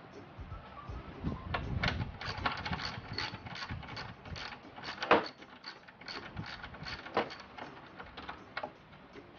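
Hand ratchet wrench clicking in quick runs on the nuts of a Mazda Premacy's front strut top mount, with a sharper metallic knock about five seconds in.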